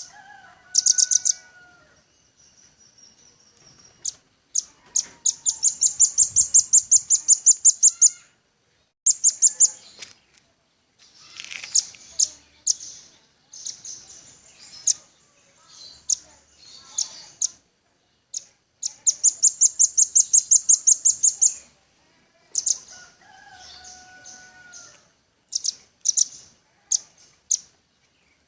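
Velvet-fronted nuthatch (rambatan paruh merah) calling in rapid trills of sharp, high chip notes, about seven a second. Trills of a few seconds come about 4 s in and again about two-thirds through, with shorter chip series between them. Faint lower whistles sound near the start and again near the three-quarter mark.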